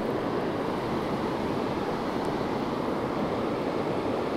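Steady rushing of flowing river water, an even hiss with no change in level.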